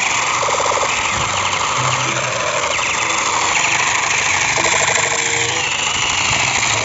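Battery-powered toy electric machine pistol running: a steady motorised rattle with rapid repeated ticks.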